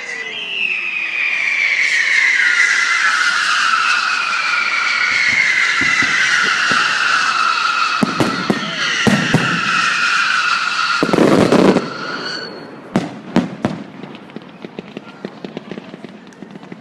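Fireworks going off: a long, loud whistle that falls slowly in pitch for about eleven seconds, broken by sharp bangs around the middle and a heavier burst near the end of the whistle, then a couple more bangs and light crackling.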